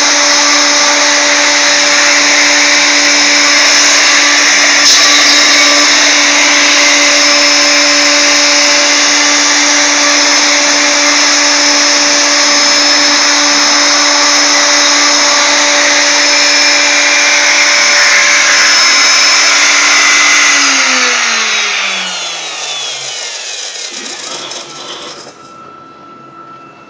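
CNC router spindle running with a steady whine while a small ball-nose bit makes a finishing pass in wood. About three quarters of the way in, the spindle winds down, its pitch falling as the sound fades.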